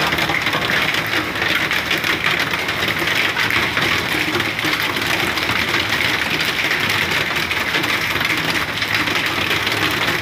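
Hailstorm: hailstones pelting down in a dense, steady clatter, with no rain falling.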